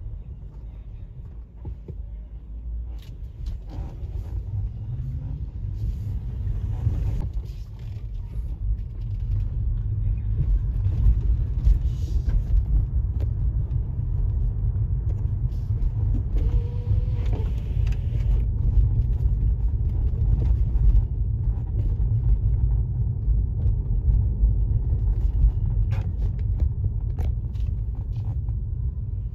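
Car driving along a city street: a steady low rumble of engine and road noise, growing louder about a third of the way through, with a few light knocks.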